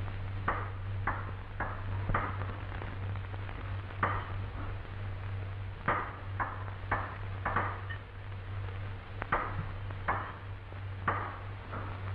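Light metallic clinks and taps of hand tools on aircraft engine parts, irregular, about one or two a second, each with a short ring, over the steady low hum of an old film soundtrack.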